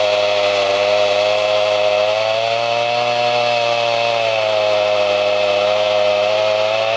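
Gas chainsaw running at full throttle, cutting through the trunk of a fallen tree, its pitch wavering slightly as it works through the wood.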